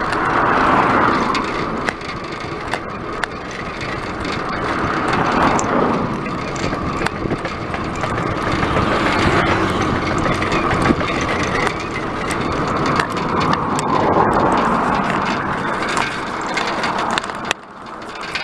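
Bicycle rolling fast on a tarmac road, heard from a handlebar-mounted camera: a steady rush of wind and tyre noise with scattered clicks and rattles from the bike, dipping briefly near the end.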